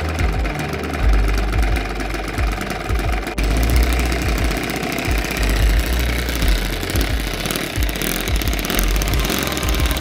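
Petrol-fuelled 15 cc open-valve four-stroke model aircraft engine running at idle with an uneven knocking beat.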